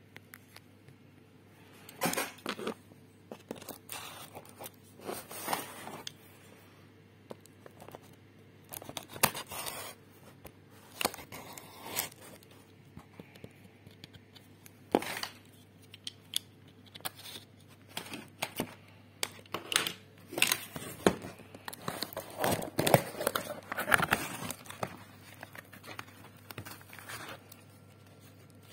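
Small cardboard shipping box being handled and opened by hand: irregular scrapes, rustles and tearing of cardboard and packing tape, with the crinkle of the memory module's anti-static bag as it is lifted out of the foam insert near the end.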